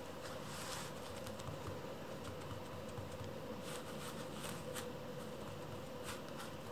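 Light scratching and crinkling of a kitten's claws on a thin plastic sheet, in short bursts: once early, several times about four seconds in, and again near the end, over a steady low hum.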